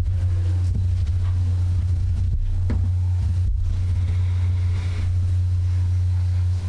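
Steady low hum that stays even throughout, with a few faint, indistinct sounds above it.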